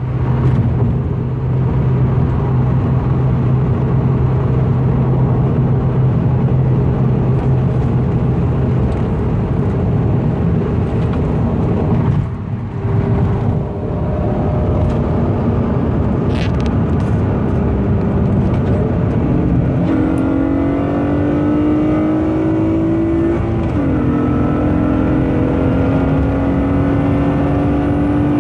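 A 2008 Acura TL Type-S with a Tsudo J-pipe and aftermarket exhaust, heard from inside the cabin: a steady low exhaust drone at highway cruise. After a short lull about twelve seconds in, the 3.5-litre V6 pulls hard under full throttle, its tone rising steadily toward high revs.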